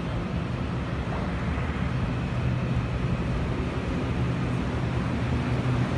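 Taiwan Railway EMU800 electric multiple unit pulling in alongside the platform: a steady low rumble and hum that grows slightly louder as it draws near, with a faint high whine from about two seconds in.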